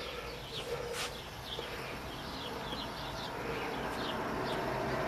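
Small birds chirping, a run of short high chirps several times a second. A single sharp click comes about a second in, and a rushing noise grows louder toward the end.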